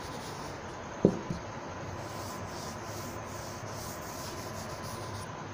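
Chalkboard eraser wiping chalk off a chalkboard in repeated rubbing strokes, most plainly from about two seconds in. A brief voice sound about a second in.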